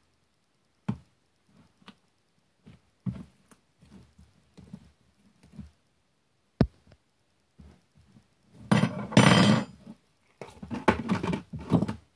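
A spoon knocking sharply against a slime container a few times, then stretches of wet squelching as the slime is stirred and pulled with the spoon.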